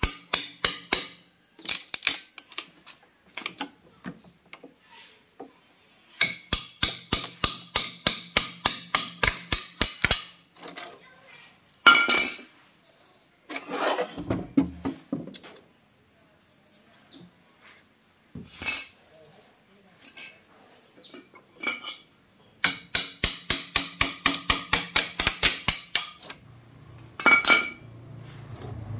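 Metallic clicking and knocking from work on a box of sealed lead-acid batteries: several quick, even runs of sharp clicks lasting a few seconds each, and single sharp knocks between them as the batteries are worked loose and lifted out.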